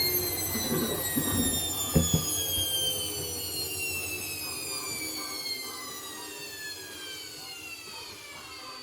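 Hoover One Touch washing machine's drum motor winding down after an 800 rpm test spin, its whine falling steadily in pitch and fading. A single knock about two seconds in.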